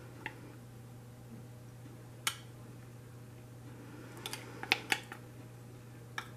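Metal spoon clinking against the inside of a glass measuring cup while scooping thick melted candy melts out of it, a few short sharp clinks with a quick cluster about four to five seconds in.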